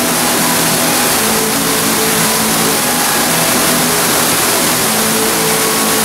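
Artificial waterfall pouring steadily into a pool, a constant rushing splash with faint steady tones underneath.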